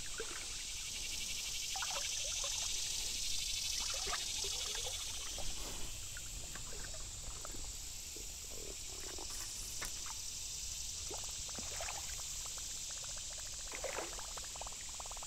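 Steady high insect drone with light water trickling and a few small splashes and clicks scattered through it.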